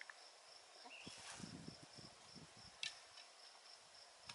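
Near silence: quiet outdoor ambience with a faint, steady, high-pitched insect-like trill, and a few soft rustles and a small click from handling gear.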